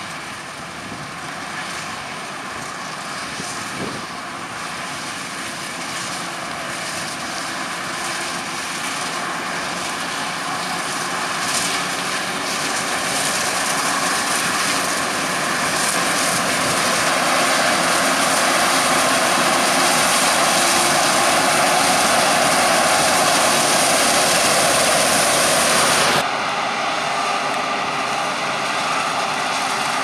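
Krone BiG X 1180 forage harvester chopping maize under load: a steady engine drone with a whine and the hiss and rush of chopped crop blown from the spout, with a tractor running alongside. It grows steadily louder, then drops suddenly in level about four seconds before the end.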